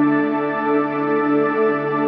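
Ambient shimmer synthesizer pad holding a sustained chord in the key of D, its tones held steady with a gentle wavering in loudness.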